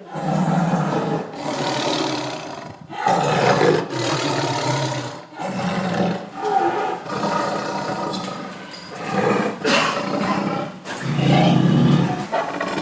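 Angry tiger roaring and growling in a run of long, loud bouts, each broken by a short pause about every two to three seconds.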